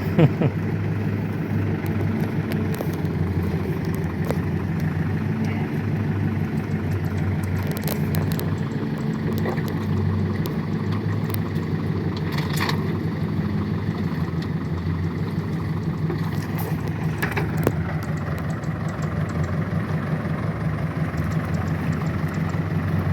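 Tractor engine running steadily at a constant speed, with a few sharp knocks along the way, as the tractor works to free itself from the mud.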